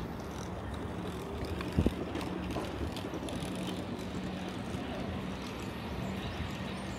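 Steady rolling noise of a bicycle ride on a city street, with a low hum throughout and a single sharp knock about two seconds in.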